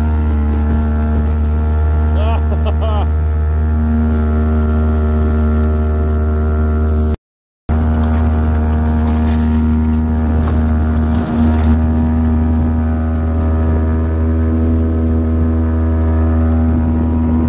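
ATV engine running steadily at low road speed, a constant drone heard from close behind. The sound drops out for a moment near the middle.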